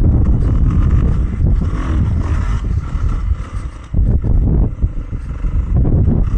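Beta 390 four-stroke single-cylinder dirt bike engine running under throttle while riding, with wind noise on the microphone. The engine sound drops off briefly about four seconds in, then picks back up.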